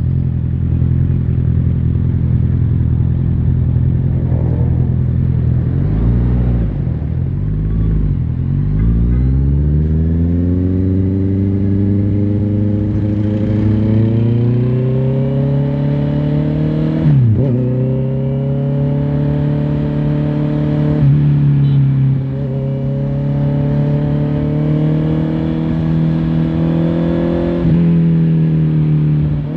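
Honda CBR650R inline-four engine heard from on the bike. It runs at low revs at first, then pulls away with the engine note rising steadily. About halfway through the note drops sharply at a gear change, then climbs again with brief dips at later shifts.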